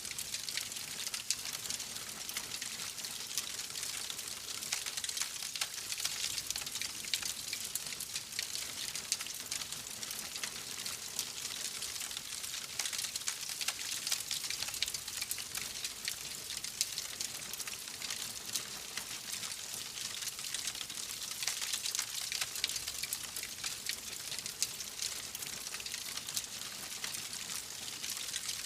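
Wood fire burning in a fireplace, crackling steadily with many small sharp pops over a hiss.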